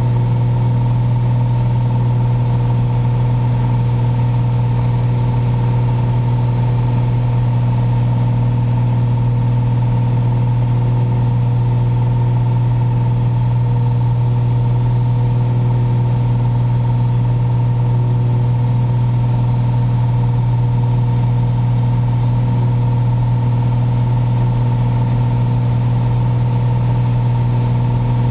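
Piper Saratoga's six-cylinder piston engine and propeller running steadily in flight, heard inside the cabin: an even low hum with a few fainter, higher steady tones above it, unchanging throughout.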